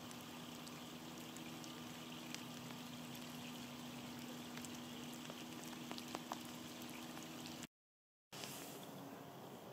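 Rain falling on a river's surface and the grassy bank, a steady soft hiss with a few single drops ticking out. It cuts out briefly near the end, then a similar faint hiss carries on.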